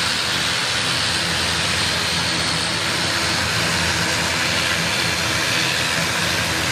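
ATR 42-600 twin-turboprop airliner taxiing with both engines running, a loud, even engine and propeller noise with a steady low hum beneath a broad hiss.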